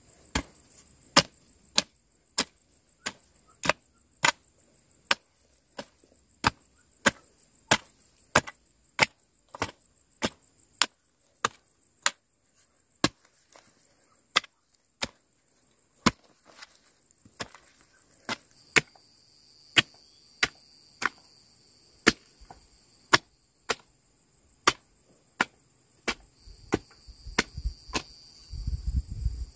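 Hand hoe chopping repeatedly into dry, rooty soil, one sharp strike every half second to second and a half. Insects (crickets or cicadas) shrill steadily underneath, with a second, lower insect tone joining about two-thirds of the way through.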